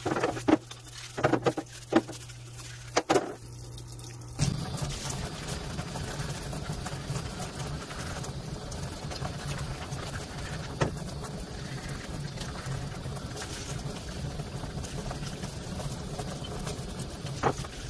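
A few sharp knocks and clicks, then, about four seconds in, water starts running and splashing steadily over a dirt bike's aluminium cylinder as it is washed.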